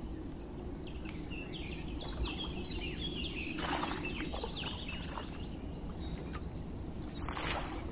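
Birds chirping repeatedly in the background, with two short rushes of splashing water, about halfway through and near the end, as a frying pan is dipped and rinsed in a river.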